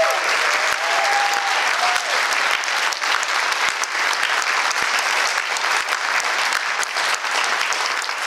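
Auditorium audience applauding steadily, with a few voices calling out in the first couple of seconds.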